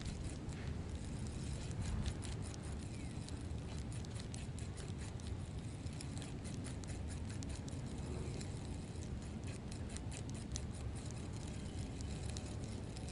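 Fishing reel cranking in a lure: a steady run of small, irregular clicks over a low wind rumble on the microphone.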